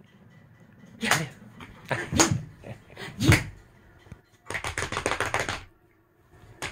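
A chihuahua puppy playing on a blanket-covered bed while a hand pats and swipes at it: scattered thumps and rustles of the bedding, then a quick patter of taps lasting about a second past the middle.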